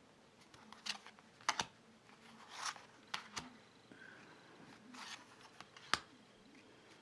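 Thick-cardstock tarot cards being handled and laid down one at a time: a handful of short, soft swishes of cards sliding, and sharp taps as cards are set down, spaced a second or two apart.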